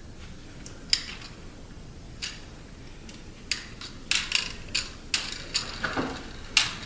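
Plastic clicking and ratcheting of a Transformers Armada Hot Shot toy car being handled, its red Mini-Con helicopter on the roof: a few scattered clicks, then a quicker run of clicks in the second half.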